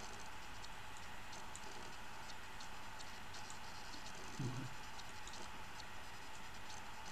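Steady faint hiss with light, irregular ticks, and a brief low sound about four and a half seconds in.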